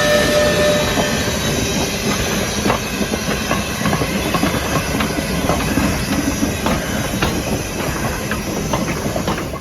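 Steam train of the 1929 Baldwin locomotive rolling along, its wheels clicking irregularly over the rail joints under a steady rumble. A high steady tone ends about a second in.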